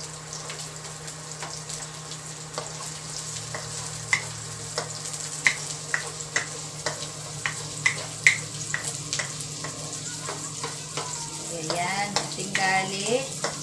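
Garlic and onions sizzling in hot oil in a wok, stirred with a wooden spatula that knocks against the pan about twice a second.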